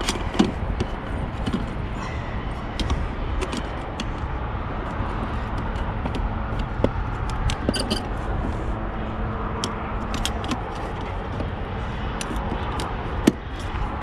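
Scattered small clicks and knocks of an old windscreen wiper blade being worked loose and unclipped from a truck's wiper arm, over a steady background rumble. A sharper knock comes near the end.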